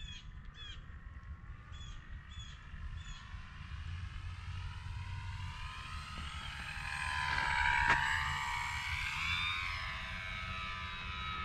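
Electric motor and propeller of a Dynam Cessna 188 RC model plane whining in flight, with a bigger propeller fitted. It grows louder to a peak about eight seconds in as the plane passes, then eases off.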